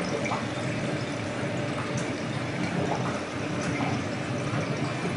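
Steady bubbling and trickling of aquarium water circulation from the tank's filter or pump, with faint small pops and a low steady hum underneath.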